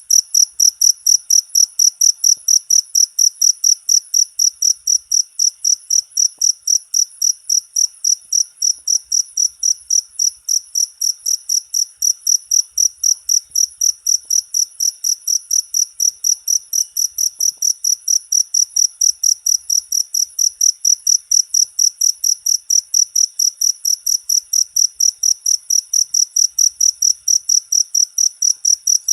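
Cricket (jangkrik) chirping in a steady, unbroken run of evenly spaced high-pitched chirps, about three a second.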